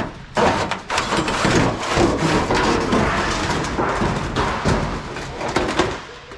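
Scrap metal clattering and scraping as pieces are pulled off a loaded vehicle, with many knocks and rattles.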